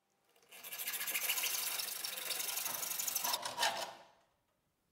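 Hand hacksaw sawing through a steel rod. The sawing starts about half a second in and dies away about four seconds in.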